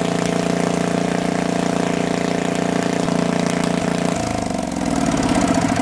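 Unmuffled Onan 4 kW generator engine running steadily and really, really loud with no muffler fitted. About four seconds in, its note breaks up and it begins to slow down.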